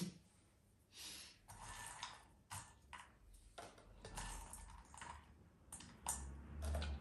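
Chopped walnut pieces clicking and rattling faintly against the bowls as they are sifted and picked through by hand, a scatter of irregular small clicks; the nuts are being checked for leftover bits of shell.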